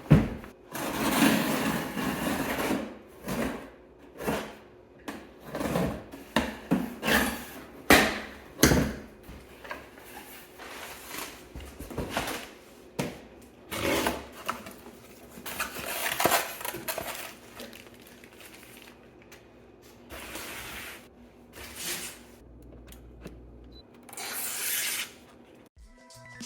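Unboxing handling noise: a cardboard box and its packing being opened and handled, with irregular rustling, scraping and knocks.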